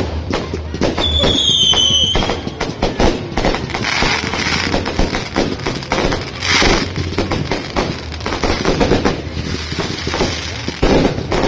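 Fireworks going off in a rapid string of bangs and crackles, with a short whistle falling slightly in pitch about a second in and several bursts of crackling hiss.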